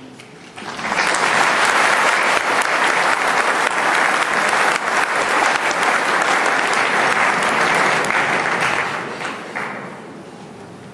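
Audience clapping in a hall: the applause starts under a second in, holds steady and dies away near the end.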